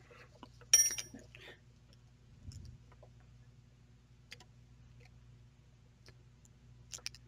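Shimano 105 ST-5800 shifter's ratchet mechanism worked by hand: one sharp metallic click with a brief ring about a second in, as a pawl releases and snaps onto the next ratchet tooth. A few faint small clicks and taps follow.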